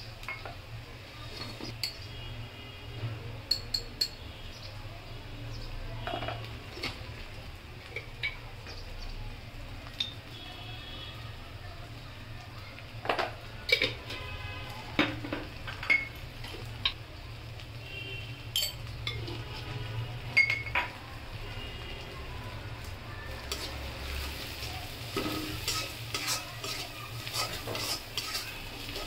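Sliced onions frying in oil in a steel wok with a low sizzle, broken by scattered sharp clinks of a metal spoon and spatula against the pan. From about three-quarters of the way through, a metal spatula scrapes and stirs the onions and spices around the wok in quick strokes.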